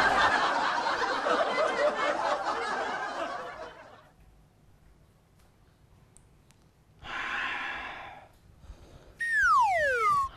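Heavy breathing and gasping for about four seconds, then a short sharp gasp, and near the end a man's high shriek of fright that falls steeply in pitch.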